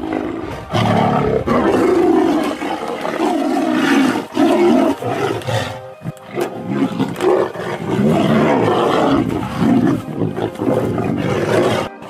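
Tigers roaring as they fight, a run of long, loud calls with short gaps and a brief lull about six seconds in; the sound cuts off suddenly near the end.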